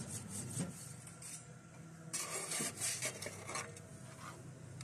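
Automatic meat slicer running with a faint steady hum. About two seconds in comes a stretch of quick metallic clattering and scraping as the blades cut through a fish fillet.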